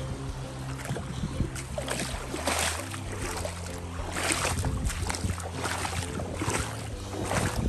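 Background music with held low notes, over the rushing and splashing of a shallow creek, in louder noisy bursts from about four seconds in.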